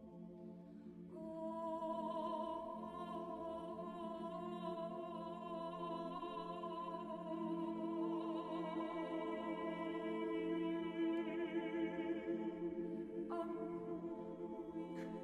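Mixed chamber choir singing a cappella in long held chords over a steady low held note. Higher voices enter about a second in, and another high voice joins near the end.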